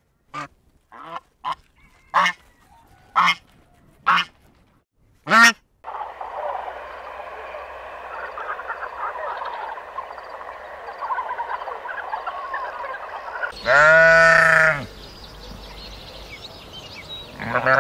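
Domestic geese honking: seven short, separate honks over the first six seconds. Then a steady din of many overlapping calls from a wildebeest herd, followed by a long bleat from a Barbary sheep at about 13.5 seconds and another right at the end.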